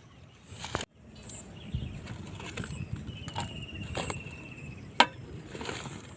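Outdoor ambience with a low rumble. An insect trills in one steady warbling note for about a second and a half in the middle, and there is a single sharp click about five seconds in.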